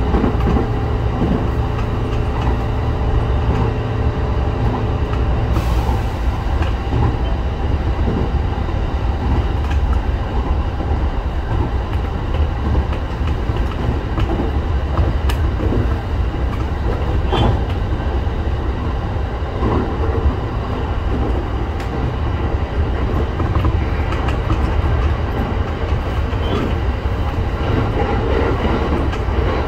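Local electric train running along the line, heard from inside the front car: a steady low rumble of wheels and running gear, with a sharp clack of the wheels over a rail joint now and then. A set of steady tones fades out about five seconds in.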